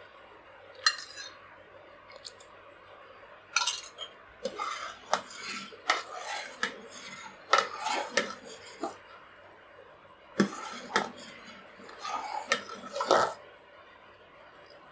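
Long steel ladle stirring hot milk in a stainless steel pot, clinking and scraping against the pot at irregular intervals, as lemon juice is stirred in to curdle the milk for paneer.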